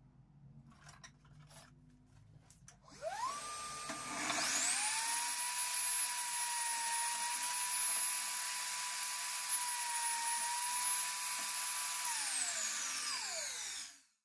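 Table saw's electric motor starting up with a rising whine, running at a steady speed for about eight seconds, then winding down.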